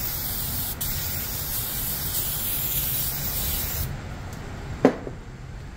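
Aerosol can of brake cleaner spraying in a steady hiss onto a bare rear wheel hub, stopping about four seconds in. A single short knock follows near the end.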